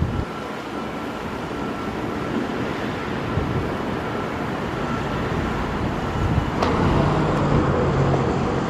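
Steady running noise of a road vehicle, a low rumble under an even rush, growing slightly louder toward the end.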